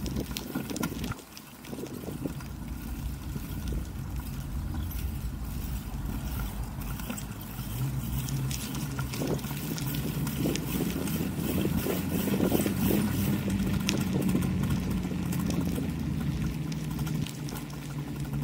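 Low rumble of wind and motion noise on the microphone while moving along a paved lane, with a low steady hum coming in about halfway through and growing stronger.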